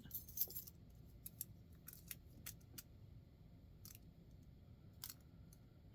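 Faint, irregular metallic clicks and scrapes of a warded pick being worked inside a warded padlock, the lock not giving: he is not having any success opening it.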